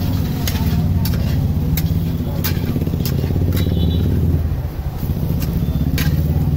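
Metal spatula clicking and scraping against an aluminium frying pan as a bread omelette is turned in ghee, over a loud, steady low rumble.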